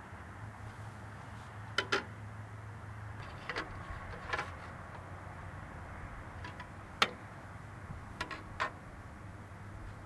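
Scattered metal clanks and taps from hands and tools working on the steel bed of a Wood-Mizer LT35 portable sawmill, the sharpest knock about seven seconds in, over a steady low hum.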